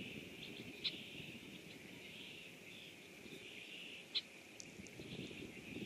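Rain falling over a pond, with a steady high-pitched chorus in the background. Two sharp ticks come about a second in and about four seconds in.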